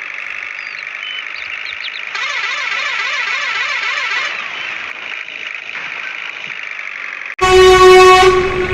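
A steady high-pitched mechanical whine that warbles and wavers for about two seconds in the middle. About three-quarters of the way in, a loud horn blast starts suddenly.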